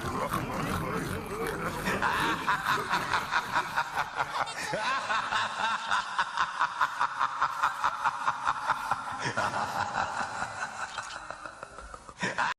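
Snickering laughter in quick, even pulses, about four a second, fading near the end and then cutting off suddenly.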